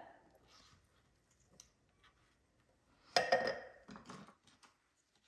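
A knife cutting drained canned asparagus spears on a cutting board: scattered soft clicks and taps, with one louder clack about three seconds in and a few smaller knocks after it.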